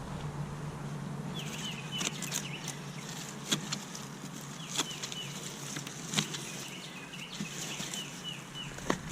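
A small bird chirping in quick runs of short repeated calls, with a few sharp knocks and light rustling in between.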